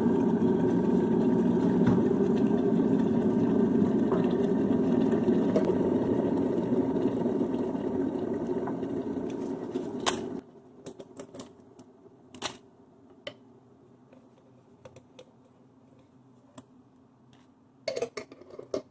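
A loud, steady rushing and rattling noise, which stops abruptly about ten seconds in. It is followed by scattered light clicks and taps from a glass jar and sachets being handled beside a ceramic mug.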